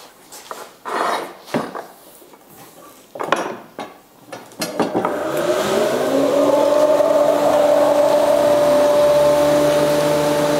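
Metal pipe clamps knock and clink as they are handled on a wooden tabletop. About halfway through, a workshop machine's electric motor starts, its whine rising in pitch as it spins up and then settling into a steady run.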